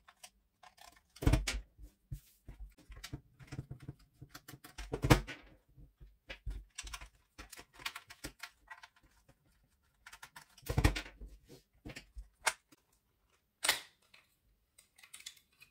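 A screwdriver undoing the small screws on the plastic underside of a toy quadcopter: scattered clicks and light scrapes of metal on plastic, with four louder knocks about a second in, near five seconds, around eleven seconds and near fourteen seconds.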